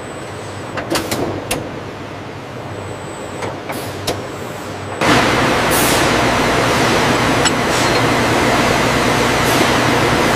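Factory machinery: a low background hum with a few sharp clicks, then about five seconds in a loud, steady machine noise with a low hum starts abruptly and keeps on.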